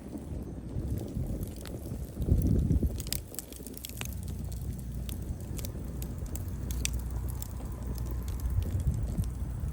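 Wood fire burning: scattered sharp crackles and pops of firewood over a low steady rumble of flames, with a louder low surge about two seconds in.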